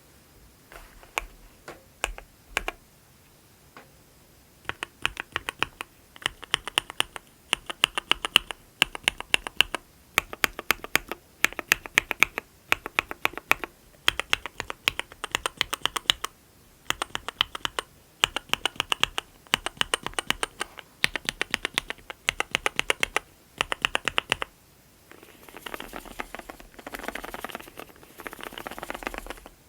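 Typing on a mechanical keyboard with Cherry MX RGB Black linear switches on 55 g progressive SPRiT springs, a SUS304 stainless steel plate and Leopold keycaps. A few single keystrokes, then runs of fast typing in bursts of a second or two, ending in a denser, quicker clatter.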